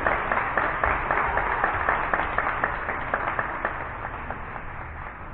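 A seated group of people clapping their hands, a dense patter of claps that thins out and dies down about four seconds in.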